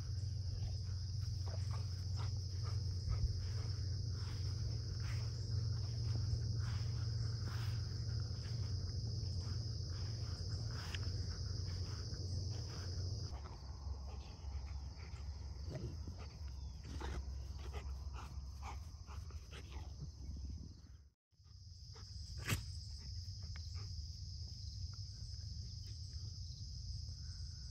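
Rottweiler sniffing through grass: repeated short snuffling sniffs, most of them in the first half. Underneath runs a steady high drone of crickets and a low rumble.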